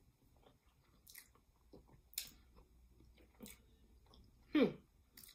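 Mouth sounds of a person chewing a mouthful of fufu with egusi soup: soft, wet smacks and clicks about a second apart. Near the end comes a short hum that falls in pitch.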